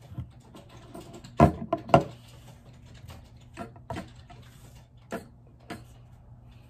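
Hard plastic LEGO pieces clicking and knocking as they are handled and set down on a tabletop: two sharp clicks close together about a second and a half in, then scattered lighter ones, over a faint steady hum.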